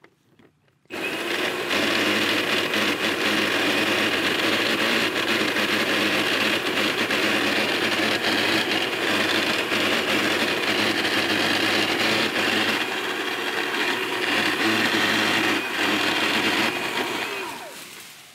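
Makita 10-inch cordless top-handle chainsaw starting about a second in and running steadily as it cuts tree limbs, then winding down near the end.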